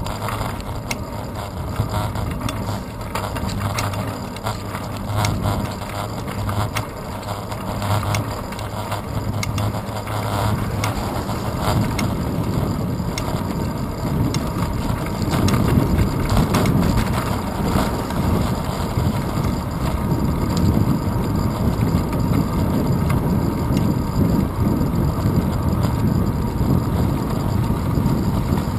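Wind noise and road rumble picked up by a handlebar-mounted GoPro Hero 2 on a moving bicycle, with many small rattling clicks from the road coming through the handlebars. The low rumble gets louder about halfway through.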